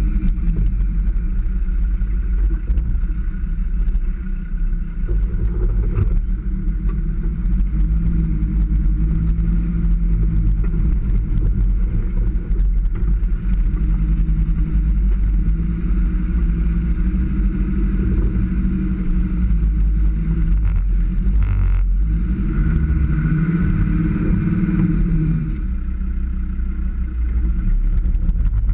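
Land Rover Defender engine running under load while driven off-road, its pitch rising and falling as the throttle is worked, with a rev up and back down near the end, over a heavy low rumble.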